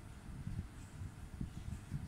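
Low rumble that swells and fades unevenly, air buffeting the microphone, with no distinct sound event.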